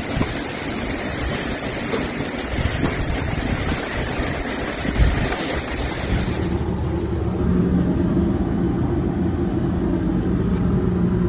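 A steady rushing noise of storm and flood water with a few knocks, then, about two-thirds in, a vehicle engine hum running steadily.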